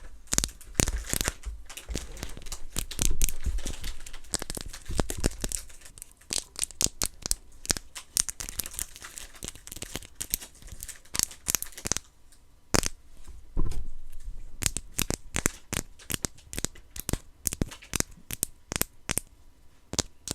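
Plastic packaging from a blind-box figure crinkling and tearing in quick, irregular crackles as it is handled and unwrapped.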